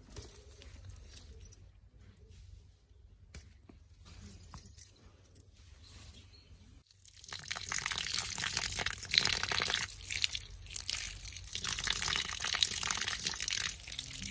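Faint small clicks and taps of handling, then, about halfway through, water pouring and splashing in a dense, crackly rush that eases briefly and starts again.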